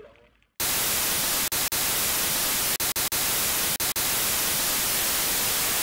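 Loud, steady white-noise static like a detuned TV, starting abruptly about half a second in and broken by several very brief dropouts, a glitch effect laid under the title card.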